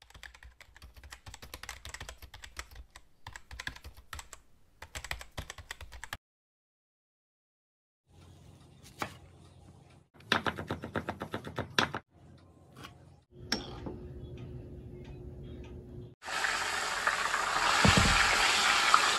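A run of rapid keyboard-typing clicks, then about two seconds of silence, then quick knife strokes on a wooden cutting board. Near the end a whole fish frying in hot oil in a wok sizzles loudly, the loudest part.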